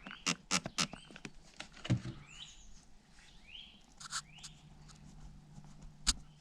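Hand spray gun squirted rapidly, about eight times in the first second and a half and again around two seconds in, wetting a tubeless tyre to find a slow puncture. A few short rising bird chirps follow.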